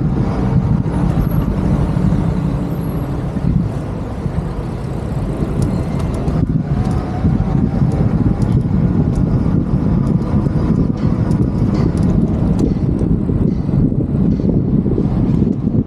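Road traffic noise: a steady low rumble of passing motor vehicles.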